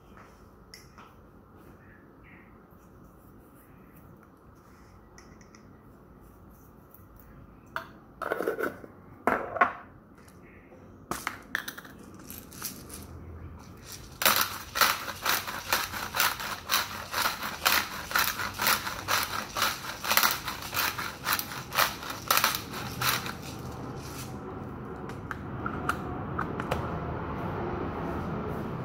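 Pepper grinder being twisted over the salad bowl: a rapid run of gritty clicks, about four a second, lasting around nine seconds, after a few louder knocks. A steady rushing noise comes up near the end.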